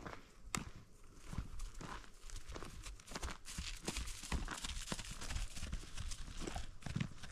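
Icelandic horse's hooves on grassy turf as it walks and then trots: an uneven run of soft steps and rustles.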